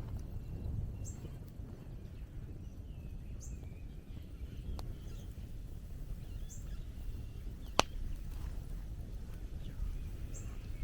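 Outdoor ambience: a steady low rumble with a bird giving a short, high call every few seconds, some fainter twittering, and one sharp click about eight seconds in.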